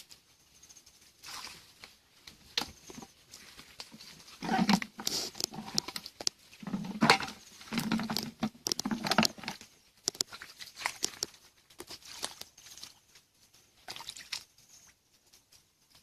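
Splashing and squelching of bare feet and hands in shallow, muddy stream water, with scattered sharp clicks and crackles. The splashing is loudest in the middle, in several bursts.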